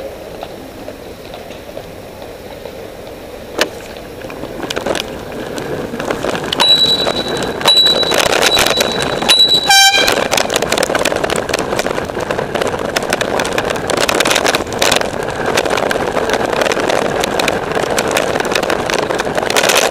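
A bicycle bell rung repeatedly, ting ting ting, for about three seconds. Then one short, loud parp from an Air Zound bicycle air horn just before halfway, to warn a pedestrian stepping into the lane. Wind and road noise rush on the microphone as the bike rides on.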